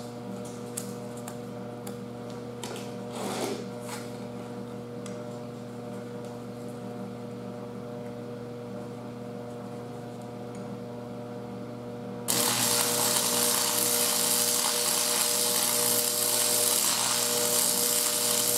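Steady electrical hum with a few light clicks, then about twelve seconds in an electric arc welder strikes an arc on the steel frame and the weld crackles and hisses steadily, much louder than the hum.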